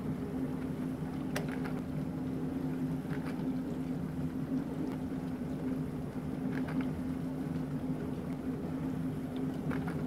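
Bosch Ascenta built-in dishwasher running partway through an Express Wash cycle: a steady low hum from the wash pump under a wash of water spraying in the tub, with a few faint ticks.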